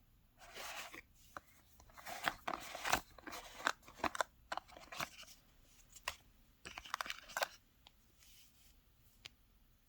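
Packaging being opened and handled: bursts of paper rustling and crinkling with small clicks and taps, dying away about three quarters of the way through.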